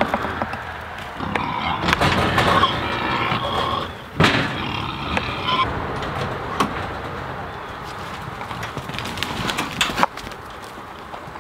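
A door or gate on a livestock shelter being opened, with high-pitched squeaking for a few seconds and one sharp bang about four seconds in, followed by scattered light knocks and clicks.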